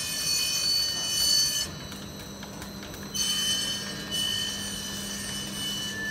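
Plastic pipe extrusion line running: steady high-pitched whines and a low hum from its motors, broken by a loud hiss for the first second and a half or so and another about three seconds in.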